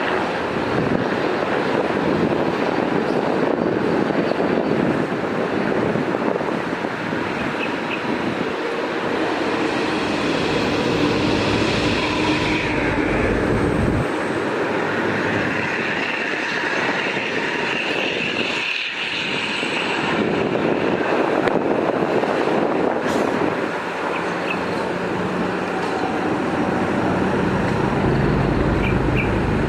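Military jet aircraft flying past in a continuous, loud roar that shifts in tone about halfway through.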